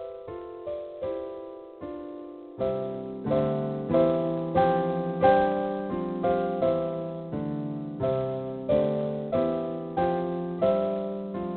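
Background piano music: single notes and chords struck in a steady rhythm, each note dying away, with a lower bass part coming in about two and a half seconds in.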